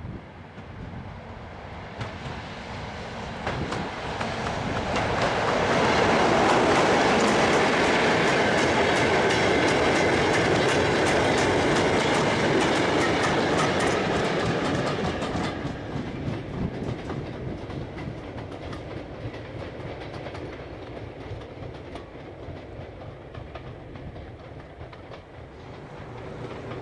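BR Class 33 'Crompton' diesel locomotive, with its Sulzer eight-cylinder engine, passing with its train. The sound builds over several seconds, then wheels click rapidly over the rail joints for about ten seconds, and it fades as the train moves away.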